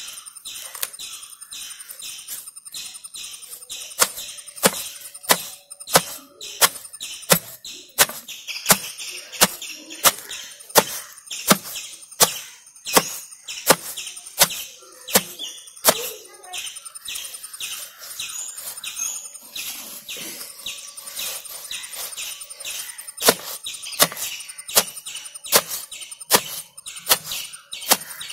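Long wooden pestle pounding fresh leafy herbs and roots in a stone mortar (ural): a steady run of thuds about every 0.7 s, beginning a few seconds in, pausing for several seconds past the middle and picking up again near the end.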